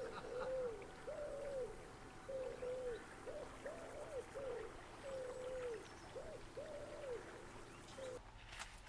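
A pigeon cooing: a series of low notes, some short and some drawn out, repeated for about eight seconds and stopping shortly before the end.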